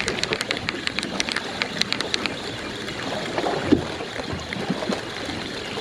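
Fishing reel being cranked to bring in a fish, a fast run of ticks for about the first two seconds, over steady wind and water noise at the shoreline.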